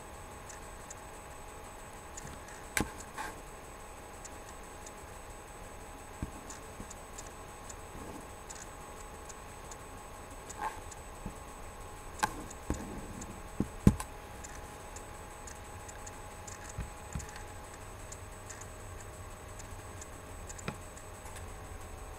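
Scattered clicks of a computer mouse and its scroll wheel, with a few louder knocks, the loudest about two thirds of the way through, over a steady faint hum.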